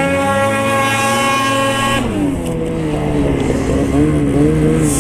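Ski-Doo 600 RS two-stroke snowmobile engine running at high revs under throttle, then easing off about two seconds in and wavering at lower revs.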